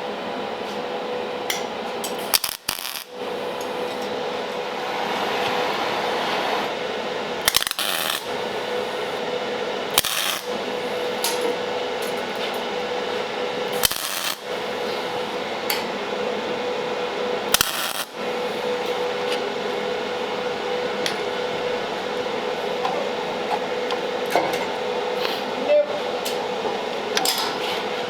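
Metal shop work: a steady noise with a faint hum, broken by several sharp metallic clanks.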